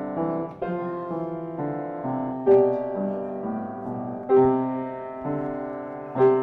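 Yamaha upright piano played by a child and an adult together: a simple melody over held notes, with a louder struck chord about every two seconds.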